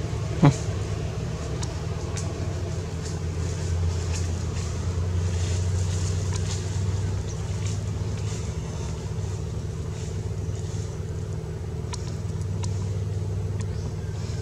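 A steady low hum like a distant motor running, with scattered faint clicks. About half a second in, a brief sharp sound sweeps down in pitch.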